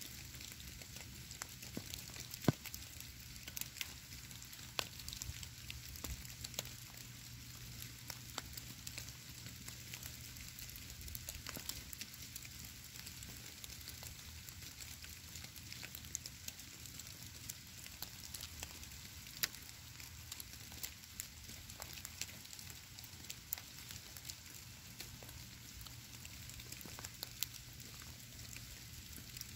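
Snowfall landing on stone and the forest floor: a fine, irregular pattering of tiny ticks over a soft hiss, with a faint steady low hum underneath.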